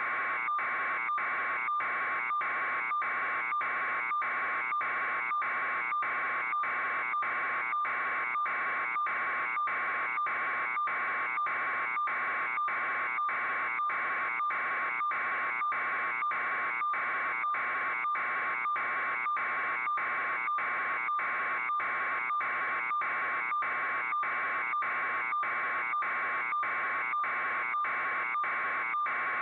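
Steady electronic buzz pulsing evenly, a little over two pulses a second, without change.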